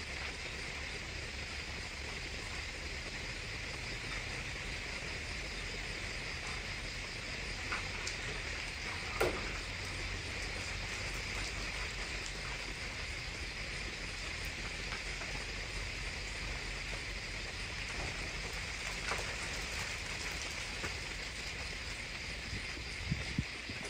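Steady chorus of night insects such as crickets, an unbroken high-pitched chirring. A few faint clicks and knocks are scattered through it, the sharpest about nine seconds in and two more near the end.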